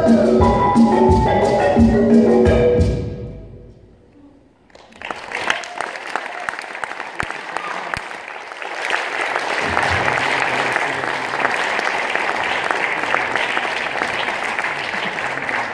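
A live band's song ends: drums and sustained pitched notes ring for about three seconds and die away. A moment later the audience starts applauding, growing louder and going on steadily.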